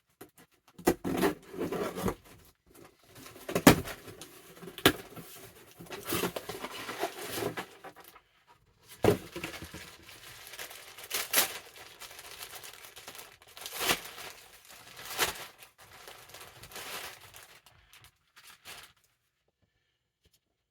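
Packaging being torn open and crinkled by hand, irregular crackling rustles with sharp snaps, pausing briefly about halfway through.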